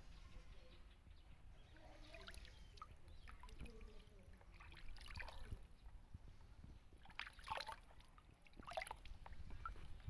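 Faint splashing and sloshing of water in a plastic basin as a baby monkey is washed by hand, with a few louder splashes in the second half.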